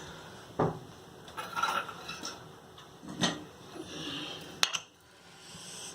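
Metal kitchen vessels and utensils being handled: a few separate knocks and clinks with softer scraping between.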